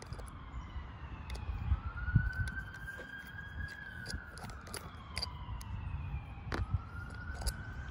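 An emergency-vehicle siren wailing, its pitch sliding slowly up and down, with scattered light clicks of a screwdriver working the top-cap screws of a carburetor.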